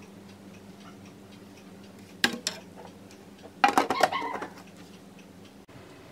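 Plastic lid of a cable management box being fitted and pressed shut: two sharp plastic clicks about two seconds in, then a short clatter of knocks and clicks as the lid is pushed down.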